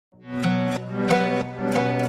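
Instrumental new-age intro music: plucked string notes ringing over a steady held low tone, fading in just after the start.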